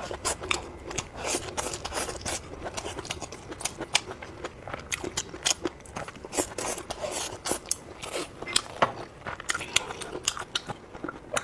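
Close-up eating sounds: crisp, irregular clicks, crackles and crunches of food being bitten and chewed, several a second.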